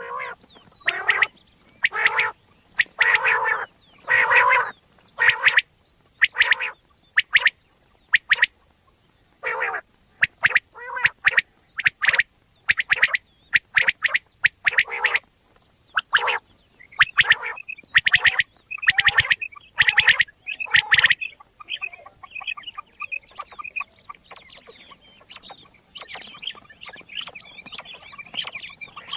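Common quail calling: runs of short, sharp call notes in quick clusters, loud until about two-thirds of the way through, then softer, rapid twittering notes.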